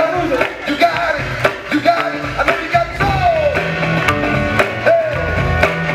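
Funky break music played over a sound system: a singing voice sliding over a bass line, with sharp drum hits keeping a steady beat.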